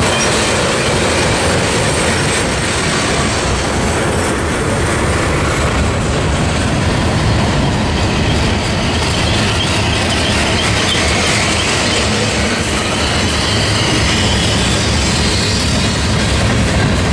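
Freight train cars rolling past close by in a steady loud rumble of wheels on rail, with clacking over the rail joints and faint wheel squeal in the second half.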